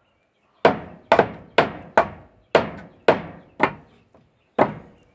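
Repeated hard whacks on a hard surface, about nine sharp blows at roughly two a second with a pause before the last: someone smashing a spider and a stink bug.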